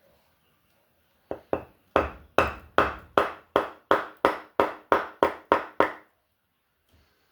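Hammer blows on metal: about fourteen quick strikes, roughly three a second, each ringing briefly, starting about a second in and stopping near six seconds.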